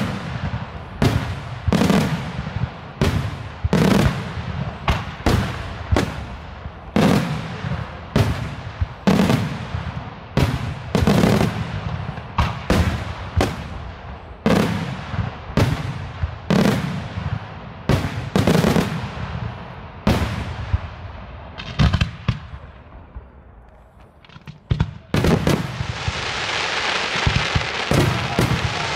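Daytime fireworks: aerial shells bursting in a rapid run of sharp bangs, about one every half second to a second. After a short lull near the end come a few more bangs, then a dense crackling of many small bursts.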